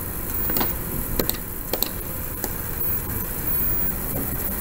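Several short computer mouse clicks in the first half, over a steady low hum and hiss of the microphone.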